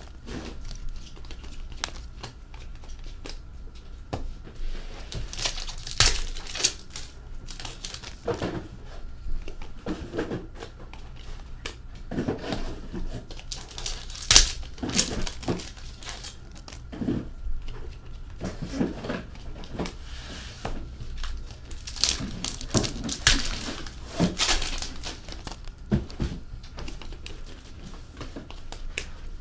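Hockey card pack wrappers being torn open and crinkled, with cards handled and set down on a glass tabletop: irregular crackling rustles and light taps, one sharper snap about halfway through.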